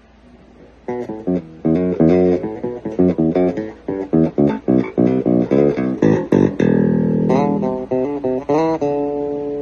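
Fernandes Revolver series electric bass guitar played solo. After a quiet first second comes a quick run of plucked notes, then a longer held note about seven seconds in and a couple of upward slides. A note is left ringing near the end.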